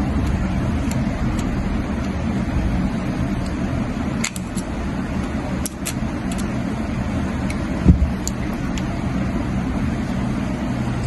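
Steady low background rumble, with a few faint light clicks scattered through it and one dull thump about eight seconds in.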